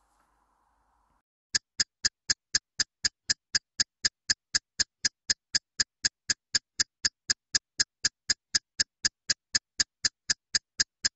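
Countdown timer ticking: sharp, even clicks at about four a second, starting about a second and a half in and running until the count is almost out.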